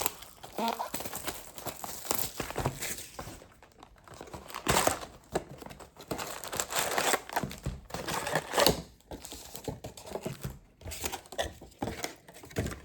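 Plastic wrapping crinkling and tearing in irregular bursts as a box of hockey trading cards is unwrapped and its packs are handled.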